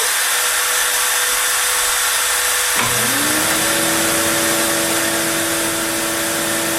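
Shop vacuum running steadily with a constant whine. About three seconds in, the Onefinity CNC's router spindle starts, rising quickly in pitch to a steady high hum under the vacuum noise.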